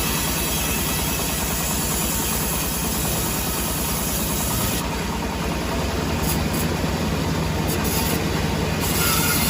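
Sawmill machinery running steadily with a low, even rumble; the high hiss thins out for a few seconds midway.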